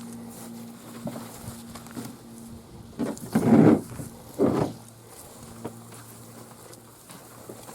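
Footsteps and handling noise over a low steady hum, with two loud rustling bursts, one about three seconds in and a shorter one a second later.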